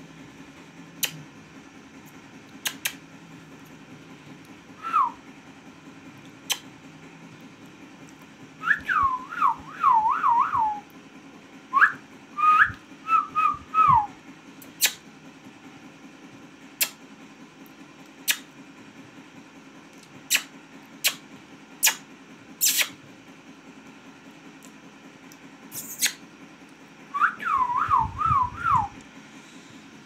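Short runs of warbling whistles, each a quick string of notes rising and falling, heard four times, with sharp clicks scattered between them over a steady low hum.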